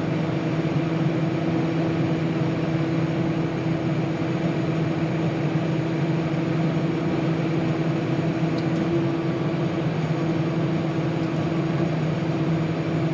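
Tractor engine running at a steady speed, a constant even drone with no change in pitch.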